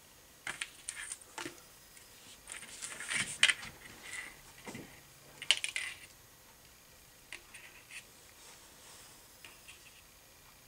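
Light metallic clicks and rattles of a wire fishing rig's snap clips and swivels being handled by fingers, coming in scattered spells, loudest about three and a half seconds in and fainter near the end.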